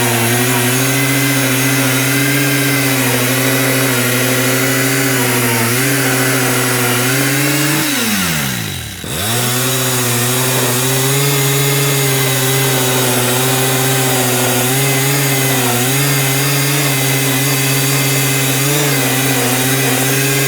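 Homemade sawmill built from an old golf cart, its gas engine running steadily under load while the saw cuts white oak. Its pitch drops sharply and recovers about eight to nine seconds in.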